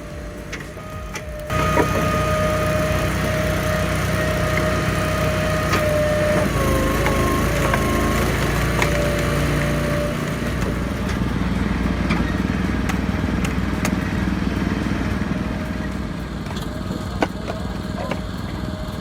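Firewood processor running and splitting logs: a steady mechanical drone with a held whine, and scattered sharp knocks and cracks of wood. The noise steps up suddenly about a second and a half in.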